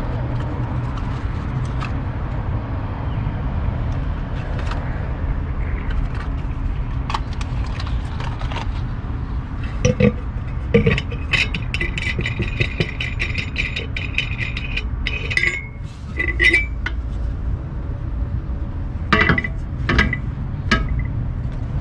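Metal clinking, scraping and rattling as a steel air cleaner lid and its wing nut are worked off a carburetor, with a dense run of clinks in the middle and sharp clicks near the end. A steady low rumble continues underneath.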